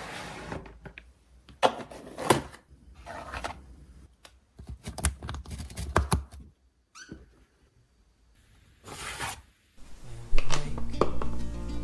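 Scattered handling sounds of household items: short knocks, clicks and rustling swishes with quiet gaps between them. Soft guitar music comes in about ten seconds in.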